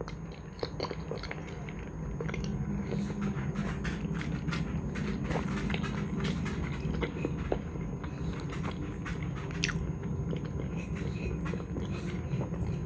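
A person chewing food with the mouth close to the microphone, with many small clicks and one sharper click near ten seconds, some of them a metal fork tapping the plate.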